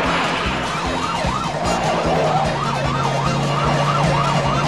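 Police car siren wailing in a fast up-and-down yelp, rising and falling about three times a second.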